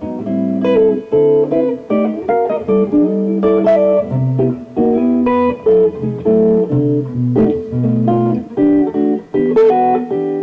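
Solo electric guitar playing a run of melodic single-note phrases mixed with chords, each note starting sharply and ringing on.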